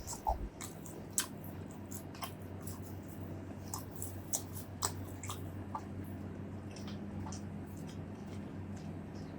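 A person chewing food close to the microphone, with irregular wet mouth clicks over a steady low hum.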